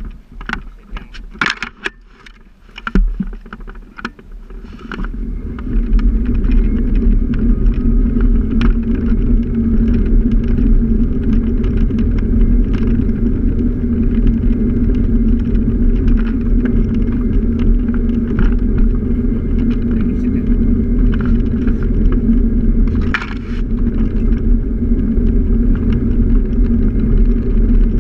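A few clicks and rattles while the scooter stands still, then from about five seconds in a steady low drone of the scooter running and riding, with road and wind noise on the mounted camera; it eases off briefly near the end.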